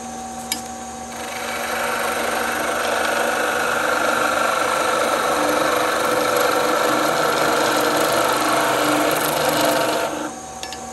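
Skew chisel cutting a spinning wooden spindle on a Shopsmith lathe, using only the heel of the blade: a steady scraping hiss from about a second in until near the end. The lathe's motor hums underneath.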